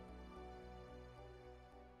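Quiet background music of held notes over a steady low pulse, slowly fading out.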